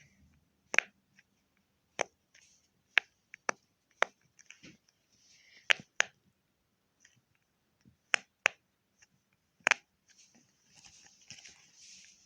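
Silicone Pop It fidget toy bubbles being pressed in one at a time: a string of sharp, irregular pops about one a second, some louder than others, from the side said to be the loud side. A faint rustle of handling comes near the end.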